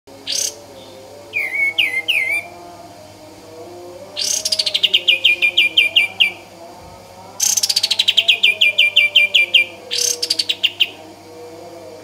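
Caged kapas tembak bulbul singing: a few short whistled notes, then two long rapid-fire trills of about two seconds each and a shorter one near the end. Each trill starts high and settles into a fast run of repeated notes.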